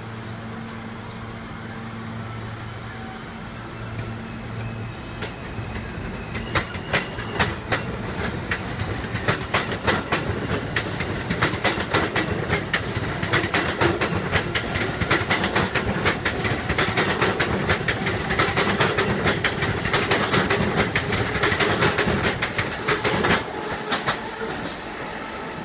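R160 subway train moving off along the track beside the platform. A steady hum of its equipment comes first, then about six seconds in a dense clatter of wheels over rail joints and switches starts and builds as it gathers speed. The sound cuts off suddenly at the end.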